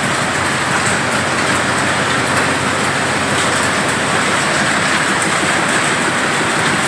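Groundnut seed grading machine running, with groundnut kernels rattling over its sieve screens and pouring out of the chute in a steady, dense clatter.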